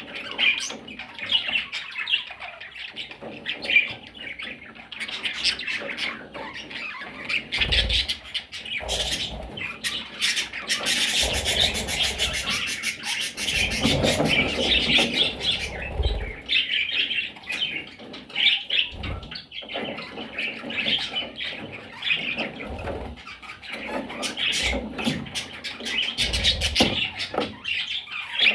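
Budgerigars chirping and chattering continuously, with a louder, noisier stretch around the middle.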